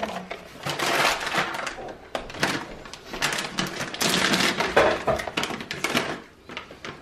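A plastic bag of dried berries crinkling and rustling as it is handled and emptied, in a run of short crackly bursts that ease off near the end.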